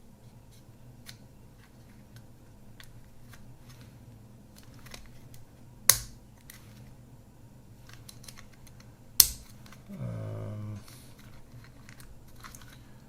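Small mechanical clicks and ticks from the workings of an opened Kodak Ektar H35N half-frame camera being handled, with two sharp, loud clicks about six and nine seconds in as the mechanism is worked. Just after the second click comes a short low buzz lasting under a second.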